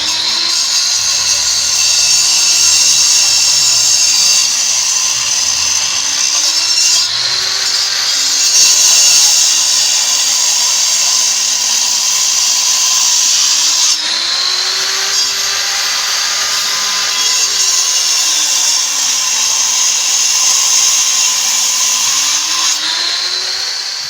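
Barovo AA2K30B 9-inch angle grinder running at full speed, cutting into concrete: a loud, high whine with a lower tone that slowly sags and recovers as the load on the disc changes.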